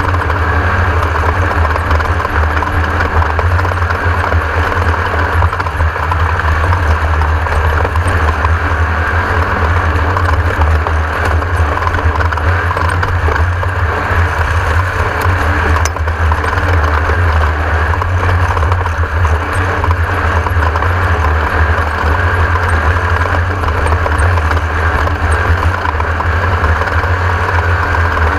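Class 1600 off-road race car's air-cooled Volkswagen flat-four engine running steadily, a loud continuous drone with a dense rush of noise over it.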